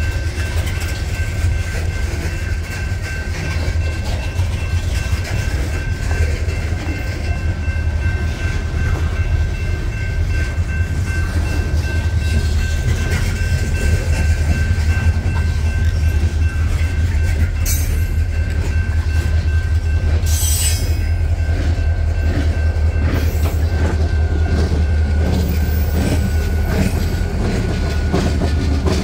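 Loaded coal hopper cars of a freight train rolling past close by: a steady heavy low rumble of the wheels with clatter over the rail joints, and a thin, steady high ring above it. Two brief hisses come about two-thirds of the way through.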